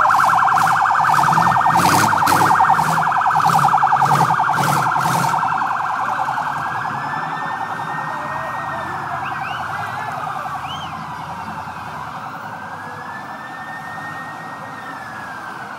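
Electronic siren in a fast yelp, switching after about five seconds to a slow rising-and-falling wail, fading gradually. Over the first five seconds a regular beat of sharp knocks sounds about twice a second.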